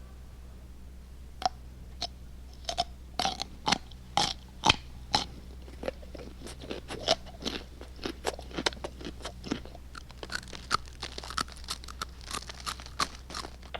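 Sound effect of a mouse gnawing on a dried-up piece of Swiss cheese: irregular crisp crunching and nibbling clicks, sparse at first and coming thicker and faster from about six seconds in, over a low steady hum.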